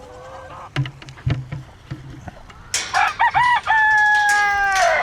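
Rooster crowing, starting about halfway in: a few short notes, then one long held note that drops away at the end.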